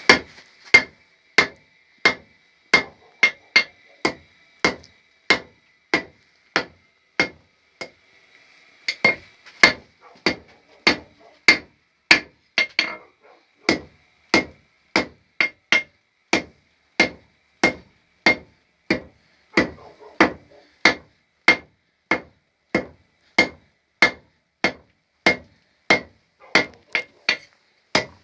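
A hand hammer striking a homemade steel anvil over and over, about two blows a second, each with a bright metallic ring; there is a short pause about eight seconds in.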